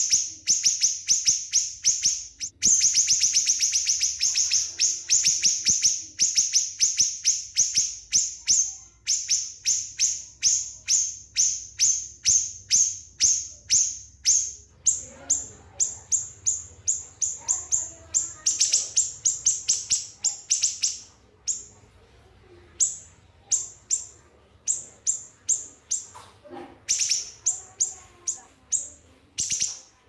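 Small songbird singing long runs of sharp, high chirps, about four or five a second, broken by short pauses that lengthen in the second half.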